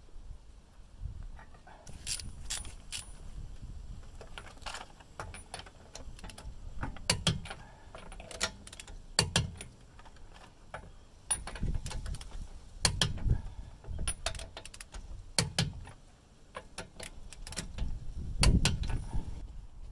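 Lug wrench turning a car's wheel nuts: irregular metallic clicks, clinks and rattles, with a few heavier knocks of the wrench.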